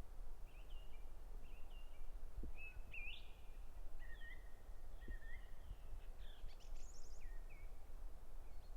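Several birds singing and calling, with short chirps and whistled notes throughout, over a low background rumble.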